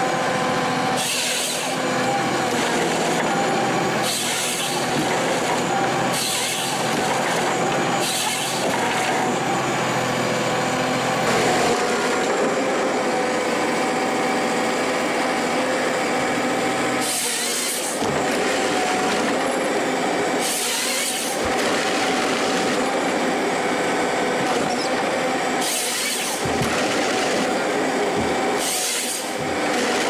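Forestry harvester running steadily while its felling head works trees, with short, sharp, high noises about every two seconds for the first ten seconds and four more, spaced out, later on.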